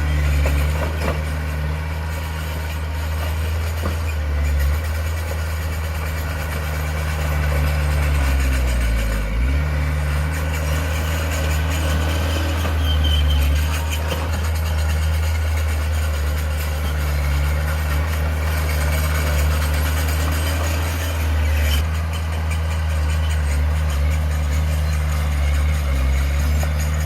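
Heavy diesel engine of earthmoving machinery running steadily, its pitch dropping briefly and coming back up about nine seconds in.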